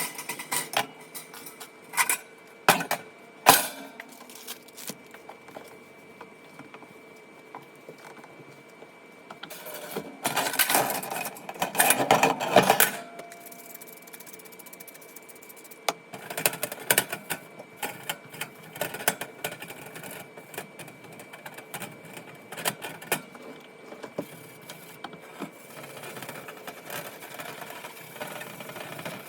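Household cleaning sounds: scattered knocks and clatter of objects being handled, with a few seconds of dense rubbing or scrubbing about ten seconds in.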